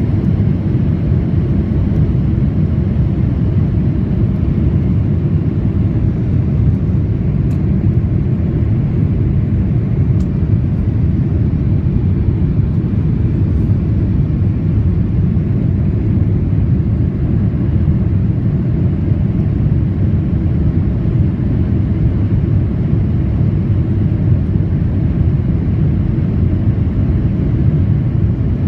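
Steady, even cabin noise of a Boeing 787 airliner in flight: the low rumble of engines and airflow heard from a window seat.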